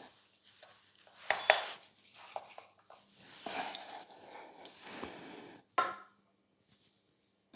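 A jump rope handle with a metal swivel being handled and set on a plastic digital kitchen scale: a few light knocks and rustles, then a sharp knock with a brief ring about two thirds of the way through as it touches down.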